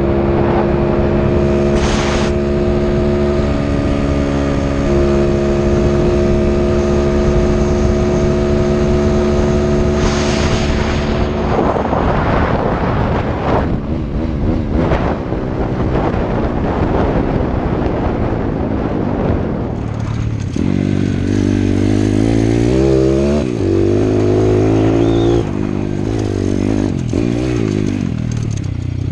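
Pit bike's Piranha 140cc single-cylinder four-stroke engine running while ridden, held at steady revs for about the first ten seconds, then revving up and down with the throttle for the rest.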